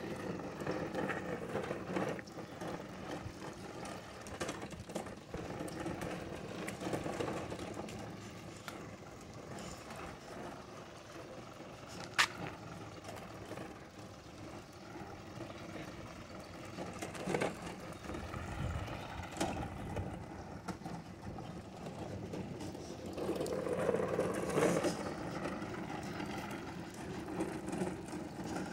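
Lawn mower being pushed along a concrete sidewalk, its wheels rolling and the machine rattling, with street traffic behind. A single sharp click about twelve seconds in.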